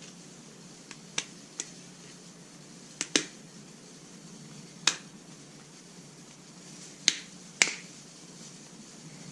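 Pliers making sharp clicks as they work on the leather belt, about seven clicks at irregular intervals, some in close pairs. A steady low hum runs underneath.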